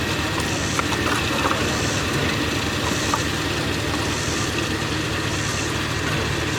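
Vehicle engine running steadily at idle.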